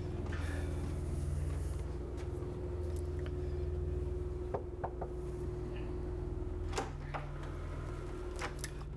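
Three quick knocks of a fist on a wooden room door about halfway through, then a couple of clicks as the door is opened, over a steady low hum.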